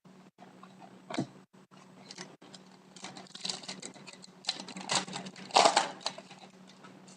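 Hockey trading cards being handled: cardstock sliding and flicking against cards, with a sharp tap about a second in and a run of scraping and rustling from about three to six seconds in.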